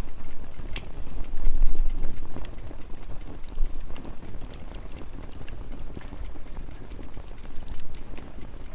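Wood fire burning, crackling with scattered sharp pops over a low steady rumble.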